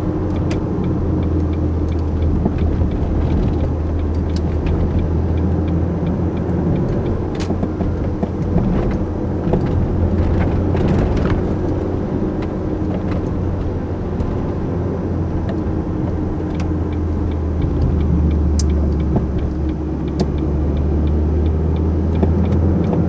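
Ford Focus 1.4's four-cylinder petrol engine and tyre noise heard from inside the cabin while driving, a steady low drone.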